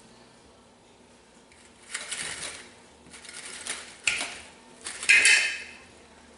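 Metal clanking and scraping in a few irregular knocks and scrapes, starting about two seconds in; the loudest, about five seconds in, has a short metallic ring. Typical of steel tools and parts being worked while refitting a rubber track on a skid steer.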